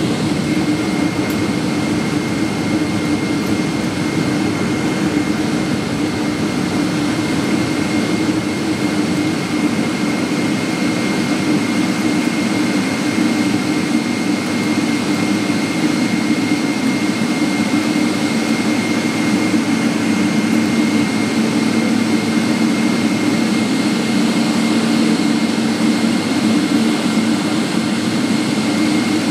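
Inside the cabin of a Boeing 777-300ER taxiing on the ground: its GE90-115B jet engines running at idle, a steady low hum with a thin high whine over it, and a second low tone joining about two-thirds of the way in.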